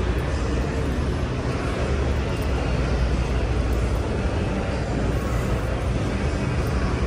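Steady low rumble of idling diesel trucks, with no distinct events.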